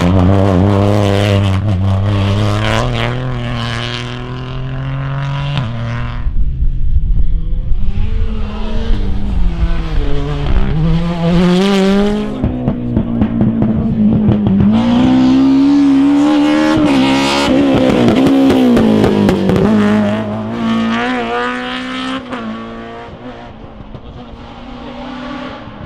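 Rally car engines revving hard on a stage, the pitch climbing and dropping repeatedly with gear changes as cars pass, in several passes cut one after another.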